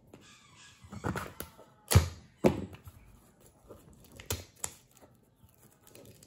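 Handling sounds from opening a small cardboard speed-cube box: scattered sharp knocks and taps as scissors and fingers work at the seal on the box and the scissors are set down on the desk, the loudest knock about two seconds in.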